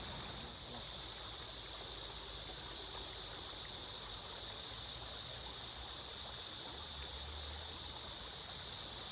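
Steady outdoor ambience: an even, high-pitched hiss that does not change.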